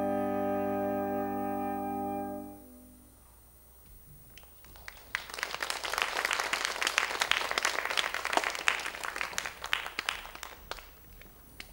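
Saxophone quartet holding a final chord that stops about two and a half seconds in. After a short pause the audience applauds for about six seconds, dying away near the end.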